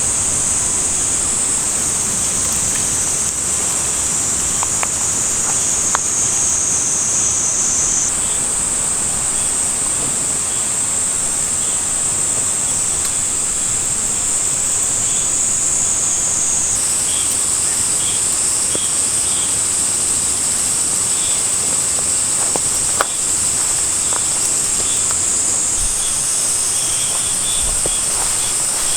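Steady, high-pitched chorus of insects in a forest, its pitch shifting abruptly a few times, with a couple of faint clicks.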